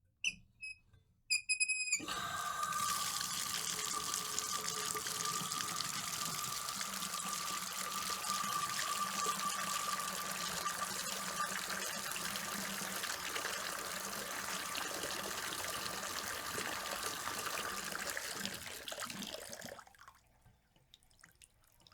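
Water running from a tap to fill a bath, a steady rush with a faint steady tone in it, preceded by a brief high squeak and stopping near the end.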